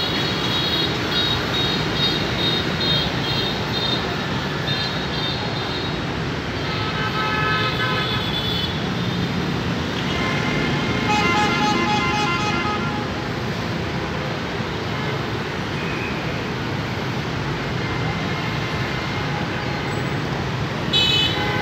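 Busy city street traffic of motorbikes and cars running steadily, with vehicle horns tooting several times: near the start, around the middle and again just before the end.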